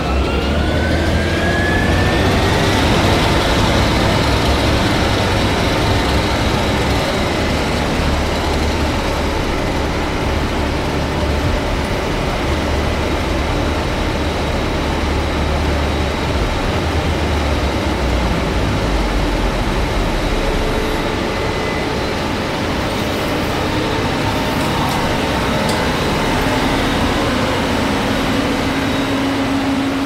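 Case IH 8230 combine running, a loud steady machine noise with a low hum underneath. A whine rises in pitch over the first three seconds as the machine spools up, then holds steady.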